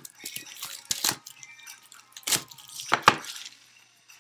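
Hands handling a cardboard trading-card box on a table: crackling and a few sharp knocks, the loudest about three seconds in, then it goes quiet.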